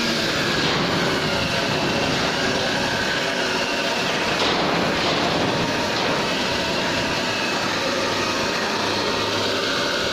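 Handheld angle grinder with an abrasive disc grinding steel, a steady grinding noise with a faint whine running through it.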